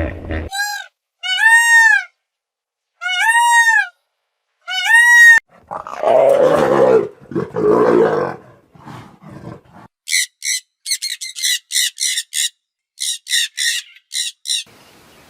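A sequence of different animal calls. First come four clear calls that rise and fall in pitch. Next come two long, rough, roar-like calls. Last is a quick run of short high chirps in small groups.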